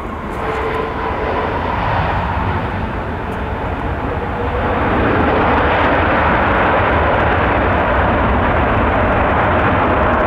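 Boeing 787 jet engines running at high power as the airliner rolls along the runway: a steady, loud jet roar with deep rumble that grows louder about five seconds in and then holds.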